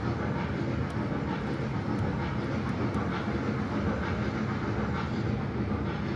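Small trackless mall ride train running, a steady low rumble from its drive and wheels rolling over the floor, with faint ticks about once a second.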